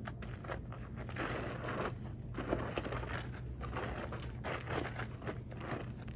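Sandaled feet stepping and shuffling on gravelly dirt, irregular crunches and longer scuffing scrapes, over a steady low hum.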